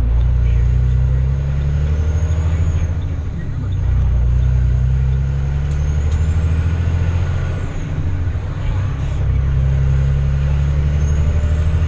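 Vehicle engine running steadily, a loud low drone that eases slightly twice and comes back up.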